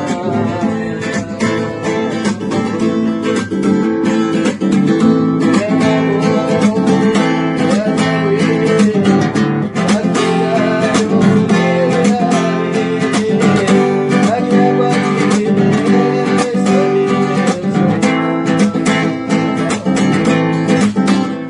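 Acoustic guitar music: a song played with strummed chords and plucked notes, without singing.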